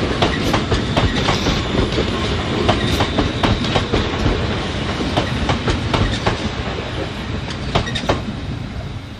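Two coupled Class 350 electric multiple units running along the rails, the wheels clicking irregularly over rail joints over a steady rumble; the sound eases slightly near the end.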